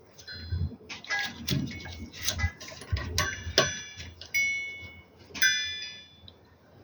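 Small clicks and taps of parts and tools being handled while an inverter's boards are refitted, with three short metallic rings about three, four and a half, and five and a half seconds in.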